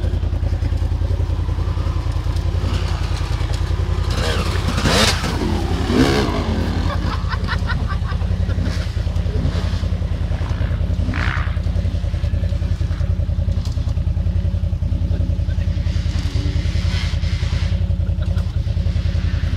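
Quad bike (ATV) engine idling steadily with a low, even rumble, with a brief louder stretch about five to six seconds in.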